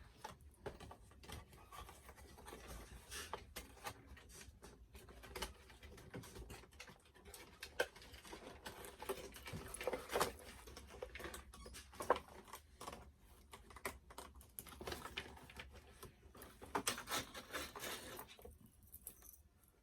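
Doll packaging being handled as accessories are taken out, with irregular rustling and small clicks that stop about a second before the end.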